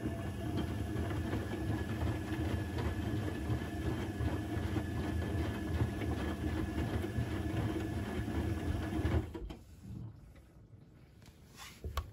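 Electrolux EWC1050 washing machine's drum motor turning the drum during a hot cotton wash, running steadily with a fast even clatter. It stops abruptly about nine seconds in, at the pause before the drum reverses, and a short knock follows near the end.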